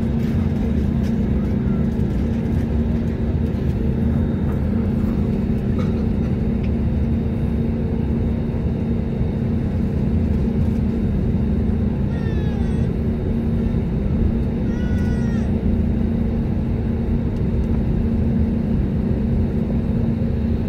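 Jet airliner engines running at taxi power, heard inside the cabin beside the engine: a steady rumble with a constant low hum. Two brief faint high-pitched gliding sounds come near the middle.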